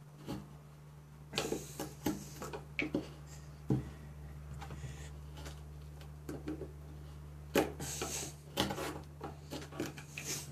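A carbon-steel Mora Companion knife shaving a pine block, in short irregular scraping cuts a second or more apart, over a steady low hum. The edge has gone nearly fully dull, so each stroke takes more force.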